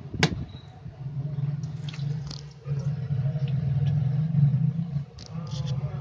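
Semi-automatic washing machine running during a descaler cleaning wash: a low steady hum from the machine, dipping briefly a few times, with foaming water in the tub. A sharp click comes about a quarter second in.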